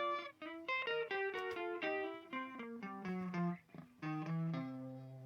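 Background music: a plucked guitar picking out a melody of single notes, settling on a held low note near the end.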